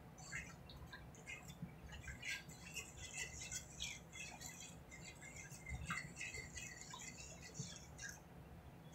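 Thick flour-and-onion gravy cooking in a skillet as it is stirred: faint, irregular crackling and ticking, several small pops a second.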